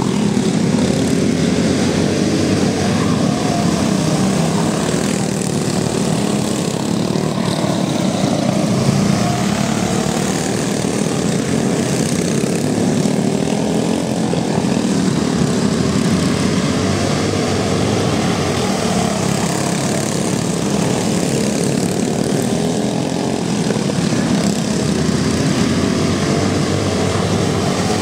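A pack of racing go-karts with Briggs & Stratton Raptor single-cylinder engines running hard together, a dense overlapping buzz whose pitch rises and falls as the karts brake into and accelerate out of the turns.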